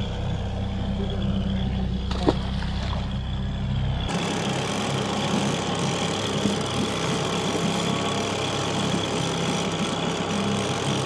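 Boat motor running steadily at trolling speed, a low even hum. About four seconds in, the deep rumble suddenly drops out and a brighter hiss takes over.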